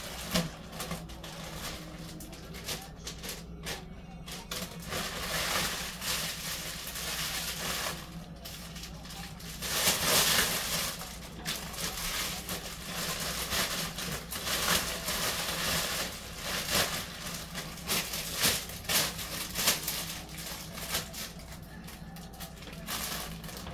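Plastic zip-top bag crinkling and rustling as it is handled, in irregular bursts that swell loudest about ten seconds in, over a steady low hum.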